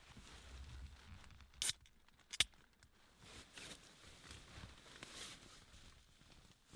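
An aluminium beer can being handled and opened: two short, sharp sounds about two thirds of a second apart, a crack-and-hiss of the tab and a click, over faint rustling of clothing and hands.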